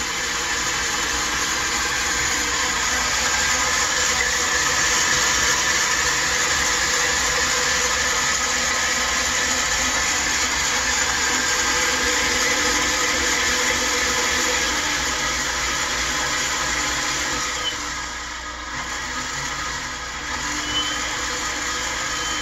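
KitchenAid 8-quart commercial stand mixer's 1.3 HP motor running at top speed (speed 10), its flat beater turning in an empty stainless bowl: a steady, quiet hum that dips briefly about eighteen seconds in.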